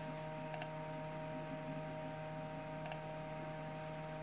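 Steady hum of a running desktop PC with a few faint constant whining tones over it, and two short mouse clicks about two seconds apart.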